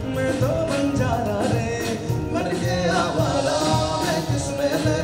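Male lead voice and a small group of vocalists singing a Bollywood song over a steady beatboxed beat.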